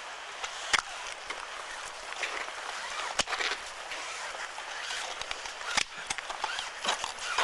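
Ice tools striking snow-covered ice and the climbing hardware on their leashes clinking: three louder sharp knocks about two and a half seconds apart, with smaller clicks between, over a steady hiss.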